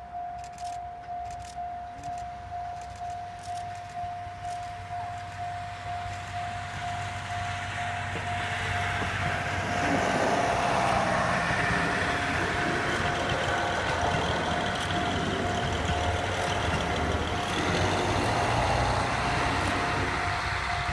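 Japanese level-crossing warning bell clanging in a steady repeating pattern. From about eight seconds in, a four-car JR Hokkaido KiHa 183 series diesel multiple unit passes over the crossing, and its diesel engines and wheels on the rails grow loud and run on under the bell.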